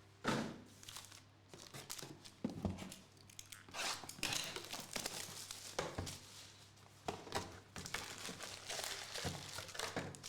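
Plastic packaging being handled, crinkling and tearing in irregular short bursts.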